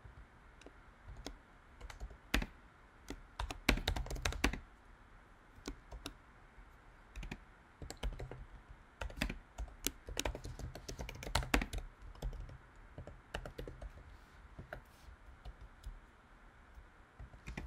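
Typing on a computer keyboard: irregular keystroke clicks in short bursts with pauses between them, with a quick flurry about four seconds in and a busier stretch in the middle.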